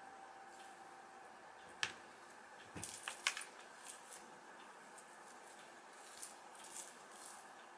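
A cat batting a feathered roly-poly toy: scattered light clicks and taps as the toy wobbles and knocks. The sharpest clicks come about two to three seconds in.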